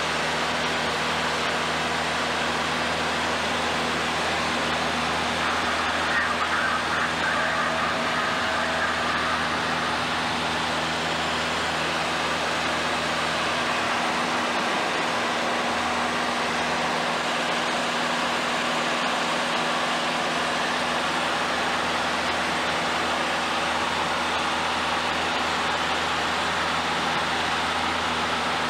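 Steady drone of a light high-wing airplane's engine and propeller, heard from inside the cabin.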